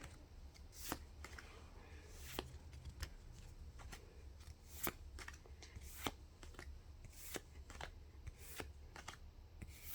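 Pokémon trading cards being slid and flicked through one by one by hand, with faint, crisp snaps of card against card at an irregular pace, about one a second.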